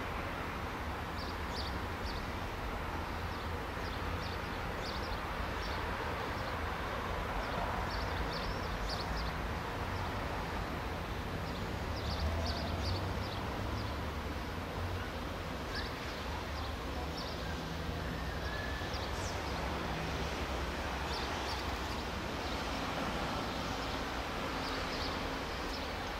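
Steam locomotive No. 705 rolling slowly, with a low rumble and a steady steam hiss. Short high clicks come and go.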